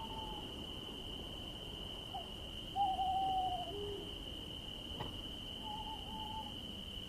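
An owl hooting several times, the longest and loudest call about three seconds in and two shorter notes near the end, over a steady high-pitched drone of crickets. A faint click comes about five seconds in.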